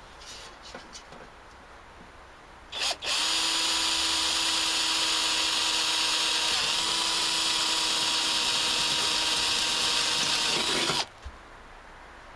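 Ryobi cordless drill boring through thin sheet metal: a short blip of the trigger about three seconds in, then a steady high whine for about eight seconds that cuts off suddenly near the end.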